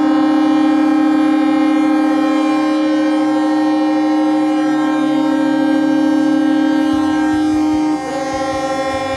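A ferry's ship horn sounding one long, deep, steady blast. About eight seconds in the tone changes and drops a little in level as a second ship's horn takes over.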